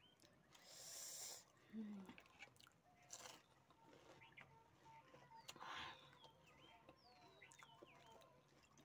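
Faint chewing and crunching of panipuri, with a couple of soft crunchy bursts, about a second in and near six seconds. Faint high bird chirps sound several times in the background.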